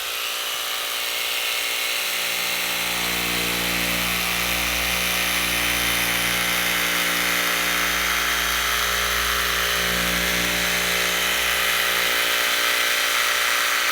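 Electric jigsaw fitted with a knife blade, its motor running steadily as the blade cuts through a sheet of vinyl.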